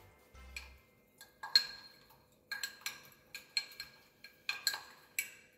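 A metal spoon stirs powdered sugar and lemon juice into icing in a small glass bowl, clinking against the glass again and again at an uneven pace. Each clink gives a short ring.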